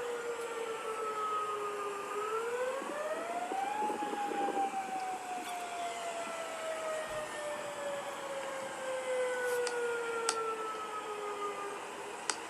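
Outdoor tornado warning siren sounding during a test, a wail. Its pitch rises for about two seconds, then slowly falls for about eight seconds.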